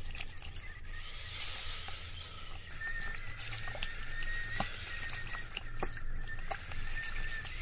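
Water trickling with scattered small drips and clicks, over a low steady hum; a faint high steady tone comes in about three seconds in.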